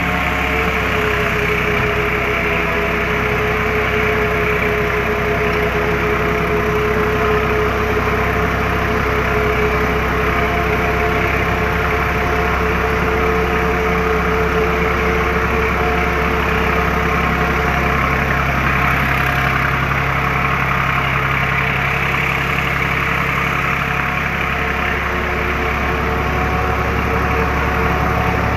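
TMR feed mixer machine running steadily: a continuous, even mechanical drone with a steady hum.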